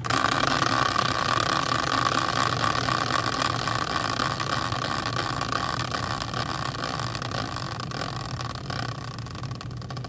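Hand-spun prize wheel made from a caster wheel on a metal bracket: it starts suddenly with a spin and keeps up a steady whir of fast ticks, slowly fading as it coasts down.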